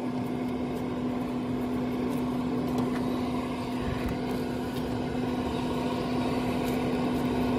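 Pit Boss pellet smoker's fan running with a steady hum while the unit goes through its shutdown cycle, with a few faint clicks from the wire racks.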